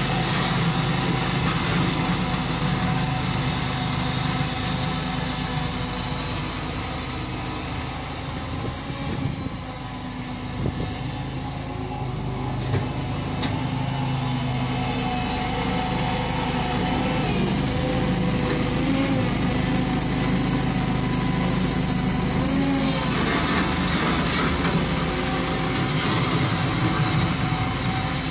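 Small engine of a home-built wheel loader running steadily as it pushes and lifts snow with its bucket. It grows quieter for a few seconds in the middle, with a couple of light knocks, then comes back up.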